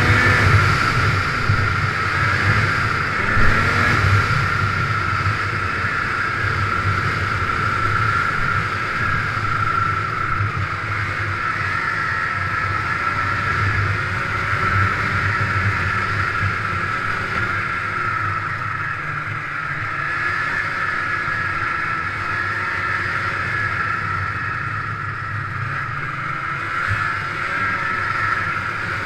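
1997 Ski-Doo MXZ 583 snowmobile's two-stroke twin engine running steadily on the trail, a steady high whine over a low drone. The engine pitch rises and falls a few times in the first few seconds, then holds fairly even.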